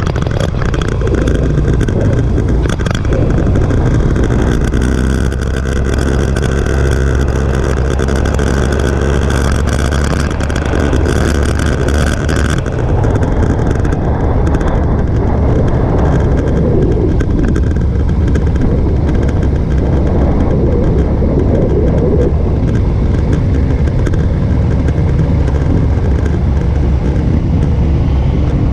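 Motorcycle engine running under way, with wind rushing past the handlebar-mounted camera. About twelve seconds in the high part of the noise drops away as the bike slows for a turn, then the engine keeps running steadily as it rides on.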